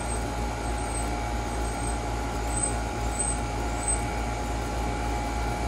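Outdoor condenser unit of a 15-year-old central air conditioner running steadily with its compressor and fan on: a steady low hum under fan noise. The compressor is at steady running load.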